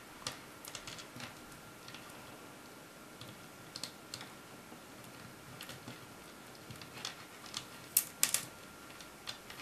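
Small plastic pony beads clicking against each other and the tabletop as they are handled and threaded onto string: scattered light clicks at an irregular pace, a few louder ones near the end.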